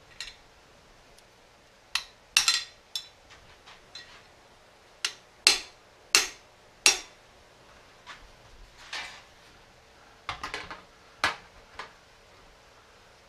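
Sharp metal-on-metal clanks and clinks at a cast-iron bench vise as the vise handle is worked and a freshly bent steel rod and a sheet of metal are handled against it: about a dozen separate knocks, the loudest in a run of four a little after the middle, some ringing briefly.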